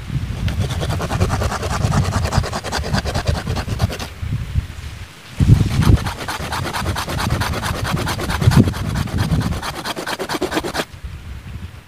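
Hand saw cutting through a thick tree root buried in soil, in steady back-and-forth rasping strokes. It breaks off briefly about four seconds in, starts again, and stops about a second before the end.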